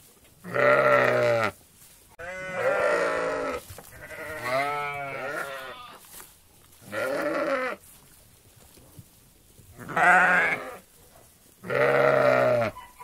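Sheep in a flock bleating: six separate bleats a second or two apart, some deep and some higher-pitched, with one long wavering bleat about four seconds in.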